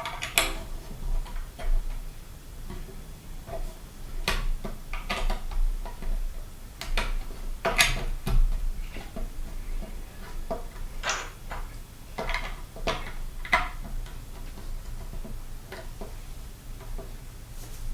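Plastic Lego pieces clicking and clacking as they are handled and pressed together, a series of sharp, irregularly spaced clicks.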